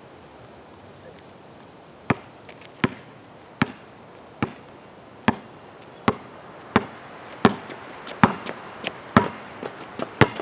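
A basketball bouncing on a concrete driveway: a sharp thud about every three-quarters of a second, starting about two seconds in.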